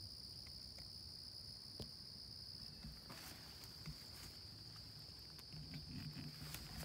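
Steady high-pitched insect chorus trilling without a break. From about three seconds in, scattered rustling and crunching steps through leaf litter and undergrowth join it.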